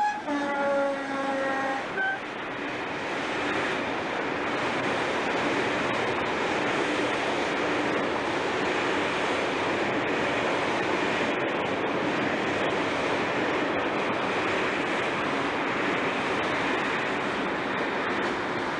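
British Rail diesel locomotive horn sounding for about two seconds, its pitch sagging slightly, with a short blip just after. After that comes a steady rushing noise from the freight train running past.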